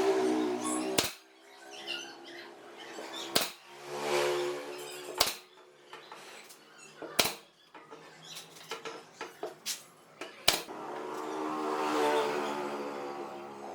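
Several sharp, separate knocks, with a pitched droning sound swelling and fading between them.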